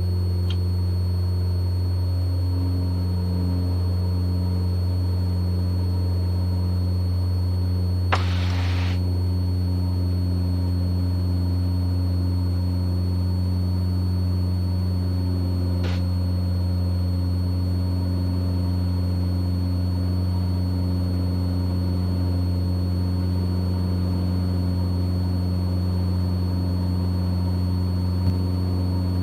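Mooney M20E's four-cylinder Lycoming engine and propeller droning steadily at full power in the climb just after takeoff, with a thin steady high whine over it. There is a short hiss about eight seconds in and a faint click near sixteen seconds.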